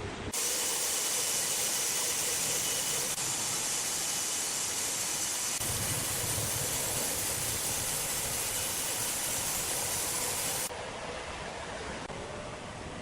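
A loud, steady hiss that starts abruptly just after the start and cuts off abruptly about eleven seconds in.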